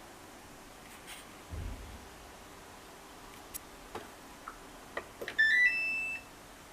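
A dull thump, a few light clicks, then a short electronic chime of beeps stepping upward in pitch from the control panel of a Gorenje WPAM74SA1T washing machine, the loudest sound, near the end.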